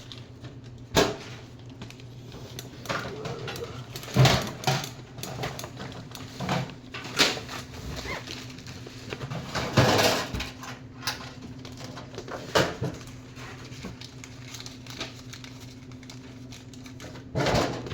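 Tool packaging being opened and handled: scattered clicks, knocks and rustles of plastic and cardboard as the screw extractor and deep socket sets are unboxed, over a steady low hum.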